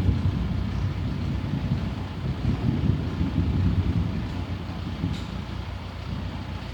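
Engine running steadily with a low, uneven rumble, as the motorised equipment hauls the drilling rig through rough ground.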